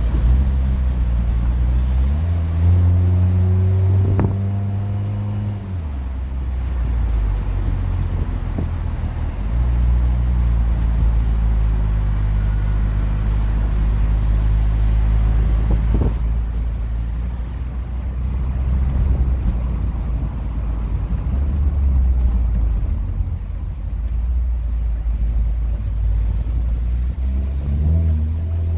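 Hyundai Tucson 2.0 engine heard through an exhaust with the final (rear) silencer removed, giving a loud, low exhaust note. The engine runs at a low idle and is revved up and held at higher revs several times, settling back in between.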